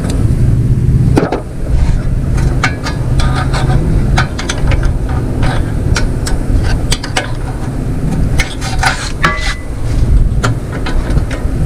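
Hand tools clicking and clinking against metal mower parts during disassembly, many short knocks at irregular intervals, over a steady low rumble.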